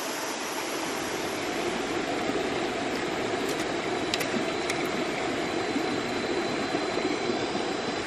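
Steady rushing of water in a rocky forest stream, with a few faint clicks around the middle and a thin high steady tone in the second half.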